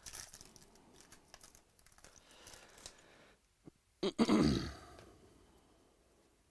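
Trading cards and pack wrappers being handled, with a light irregular rustling. About four seconds in there is a sharp click, then a short, loud, rough burst that fades over half a second.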